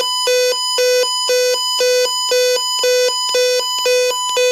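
Retekess TR265 weather radio sounding its built-in alert test: a loud, harsh alarm that alternates a low tone with a higher one, about two cycles a second.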